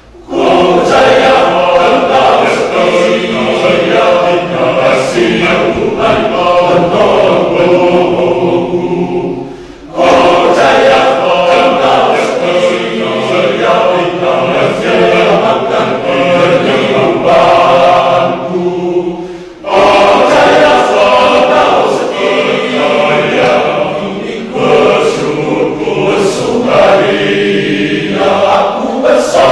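A men's church choir singing in several parts, with two short breaks between phrases, about a third and two thirds of the way through.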